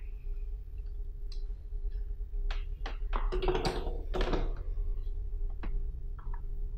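Handling of a plug-in power adapter and its cable on a wooden tabletop: scattered small clicks and knocks, with a denser patch of knocking and cable rustle in the middle, over a steady low hum.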